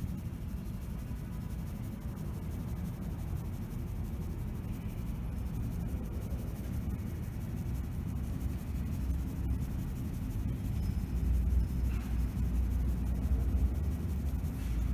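Low, steady rumble of a train station platform's background noise, growing louder near the end.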